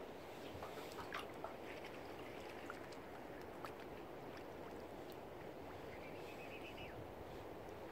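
Outdoor waterside ambience: a steady low rush of water and wind, with scattered faint clicks and a short chattering bird call about six seconds in.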